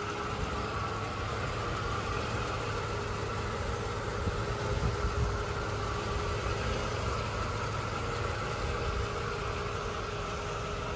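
1984 Mercedes-Benz 380 SL's 3.8-litre V8 idling steadily, engine and exhaust running smoothly.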